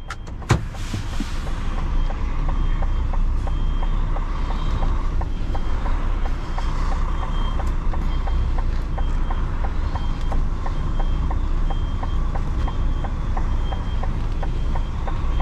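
Articulated truck reversing: its diesel engine runs steadily at low revs while the reversing alarm sounds a high beep about twice a second. A faster light ticking runs alongside, and there is a single sharp knock just after the start.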